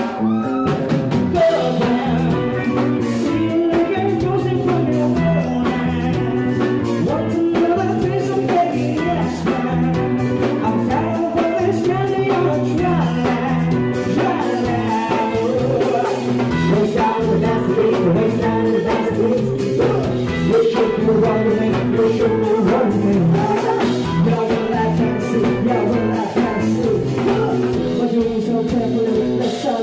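Live band playing a song on electric guitar, bass guitar, keyboard and drum kit, with a woman and a man singing into microphones.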